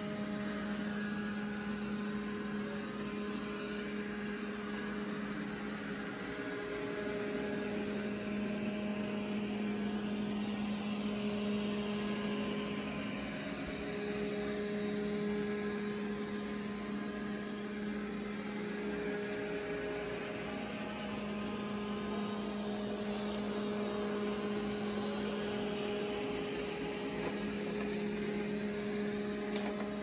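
Roborock S5 robot vacuum running over carpet: a steady hum from its suction fan and brushes, wavering briefly a few times as it works.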